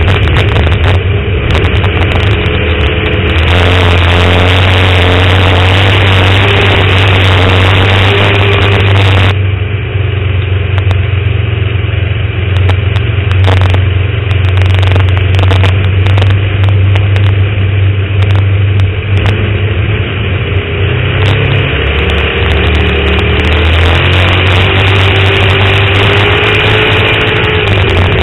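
Dirt-track stock car's engine running hard, heard from inside the car. It is loud throughout, its pitch rising and falling as the car lifts for the turns and accelerates down the straights.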